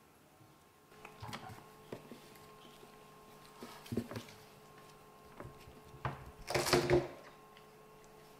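Kittens scuffling and play-fighting on a wooden floor: scattered light knocks and thumps, with a louder burst of scrambling near the end.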